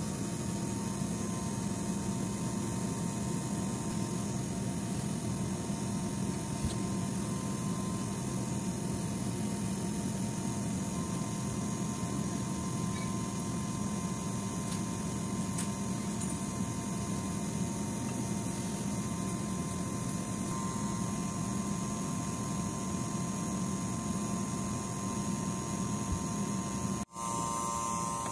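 Steady drone of running machinery with a low hum and a few faint steady tones, unchanging, breaking off for an instant near the end.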